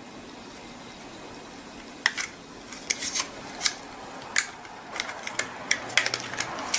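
Irregular crisp clicks and crackles of plastic packaging being handled and opened, starting about two seconds in and coming several times a second toward the end.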